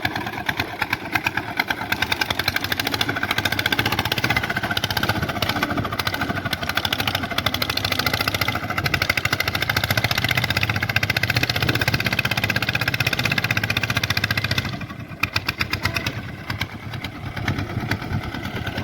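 Swaraj 855 tractor's three-cylinder diesel engine running hard under load, then dropping off about fifteen seconds in and running on more quietly. The clutch is not taking the load and slips, which the men put down to a clutch that is a bit tight and needs its setting adjusted.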